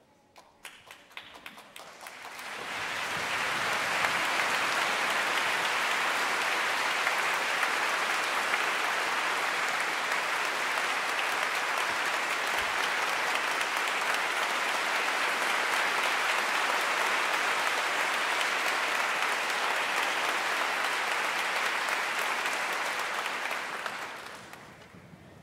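Concert-hall audience applauding: a few scattered claps at first, swelling within a couple of seconds into full, steady applause that dies away near the end.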